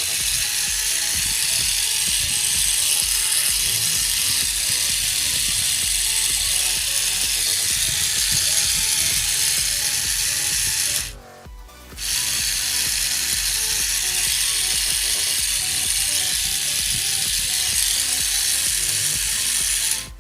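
Small electric motor and plastic gearbox of a 5 Star bootleg Crush Gear Shooting Mirage toy car running at full speed, a steady high whirring buzz. It cuts out for about a second a little past the middle, then runs again until it stops near the end. The motor is fairly fast and the gear noise fairly smooth.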